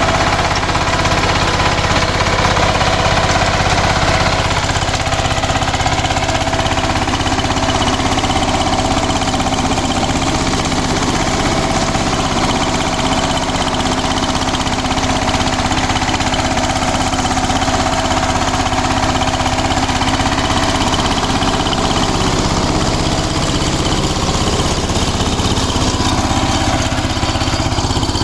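Kirloskar Mega T 15 HP power tiller's single-cylinder diesel engine running steadily, with a rapid, even chugging.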